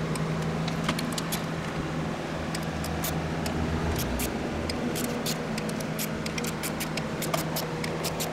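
Hand ratchet wrench clicking in short irregular runs as timing-cover bolts are turned, with light metal tool clinks, over a steady low hum.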